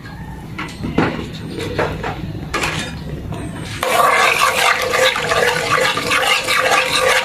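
Metal spoon stirring coconut cream in a pot, the liquid swishing and the spoon scraping the pot. It starts about halfway through and is steady from then on. Before that there are a few light clicks.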